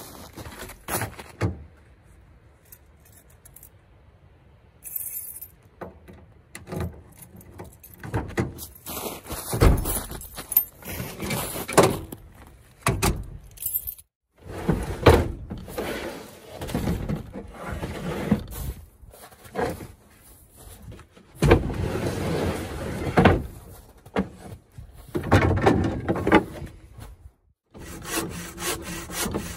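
Metal gear clanking, rattling and scraping in repeated bouts as it is handled at a truck's rear hitch. Near the end a bow saw starts cutting through a log in even back-and-forth strokes.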